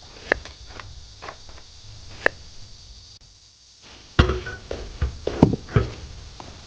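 Sharp knocks: two single taps a couple of seconds apart, then, about four seconds in, a quick run of heavier thuds.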